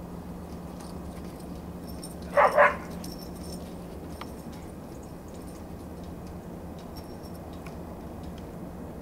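A dog barks twice in quick succession, about two and a half seconds in, over a steady low hum.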